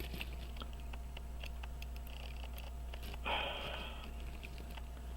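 Faint scattered clicks and taps of small tools handling a pocket-watch movement, with a short sniff or breath about three seconds in, over a steady low hum.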